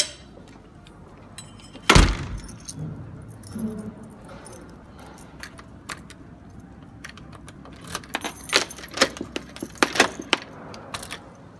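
A loud knock about two seconds in, followed by scattered clicks and then a quick run of sharp clinks and rattles of small hard objects, like keys or utensils jangling, near the end.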